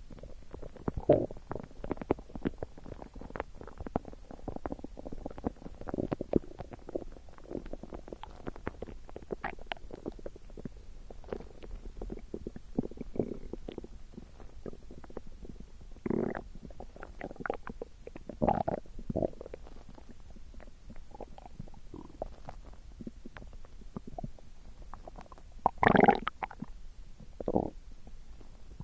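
Stomach gurgling: a steady run of small, crackling gurgles, with louder gurgles about a second in, twice around the middle, and the loudest near the end.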